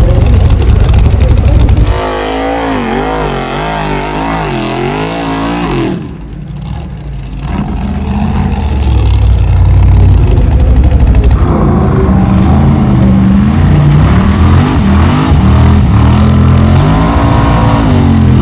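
Formula Offroad race buggy's engine revving hard, its pitch swinging up and down over and over, with a short drop in loudness about six seconds in before it picks up again.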